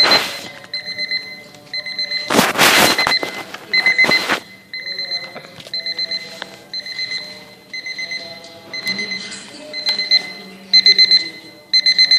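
Egg-shaped chick alarm clock beeping in short rhythmic bursts, the beeps coming in louder, quicker clusters near the end. A loud scuffling rustle about two to three seconds in.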